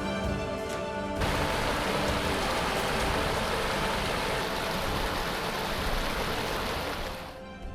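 Background music for about the first second, then a steady, loud hiss of heavy rain that fades near the end.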